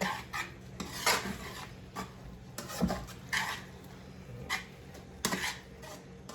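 A spoon stirring cabbage and chopped onions in a cooking pot: irregular scrapes and clinks of the spoon against the pot.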